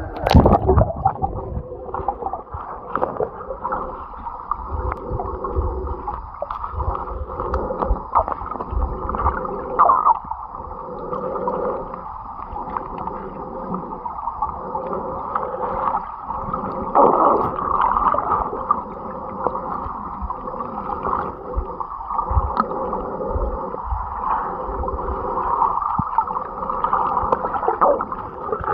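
Stream water rushing and gurgling, heard muffled by a camera underwater, with low rumbles from the current now and then.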